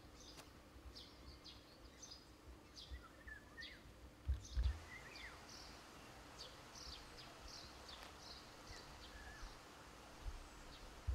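Outdoor ambience of small songbirds chirping repeatedly, short high chirps with a few whistled sliding notes, over a faint steady hum. A couple of low bumps about four and a half seconds in.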